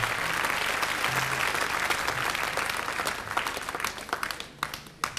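Studio audience applauding, the clapping thinning out over the last couple of seconds to a few last scattered claps.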